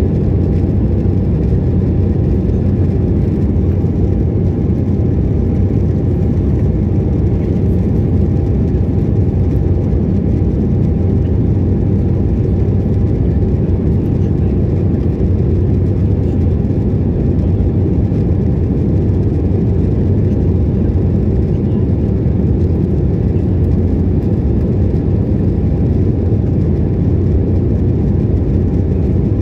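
Airliner engine and airflow noise in flight after takeoff: a steady low rumble with a faint thin tone above it.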